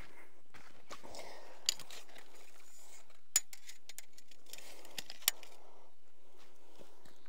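Rustling as cabbage plants are handled, with four sharp snapping clicks, two of them close together near the end.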